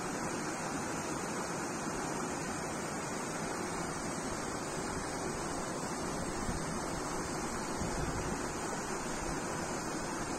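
Shallow rocky stream rushing over and between boulders: a steady rush of running water.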